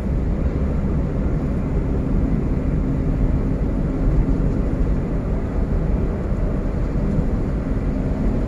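Car cabin noise while driving: a steady low rumble of engine and road noise heard from inside the car.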